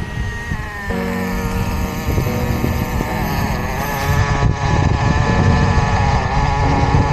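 Modified O.S. 15 CV-R nitro glow engine of an HPI Nitro RS4 2 radio-controlled car running.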